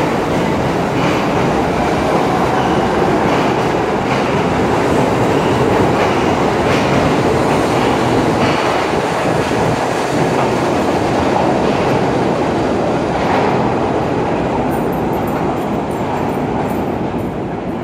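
R68 subway train accelerating out of the station past on the near track: a loud, steady rumble and rattle of the passing cars, with repeated clacks of wheels over rail joints. It fades near the end as the last car goes off down the tunnel.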